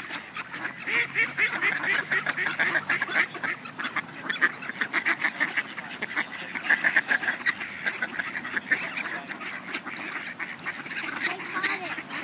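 A flock of mallard ducks quacking, many short calls overlapping in a constant chatter.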